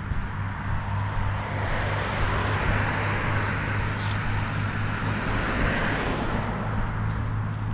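A vehicle passing, its noise swelling over a couple of seconds and fading again, over a steady low hum.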